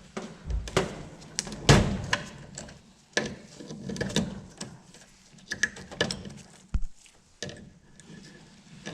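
Irregular clicks, taps and light knocks of wire terminals being pulled off a micro switch in a CMA dish machine's cam timer, with a few louder knocks among them.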